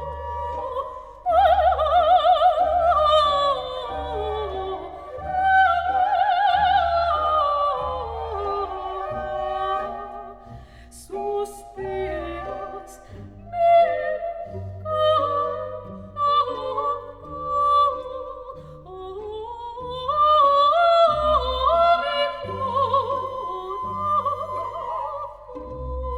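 Background music: a wavering melody over a steady low beat, which the tagger takes for operatic singing.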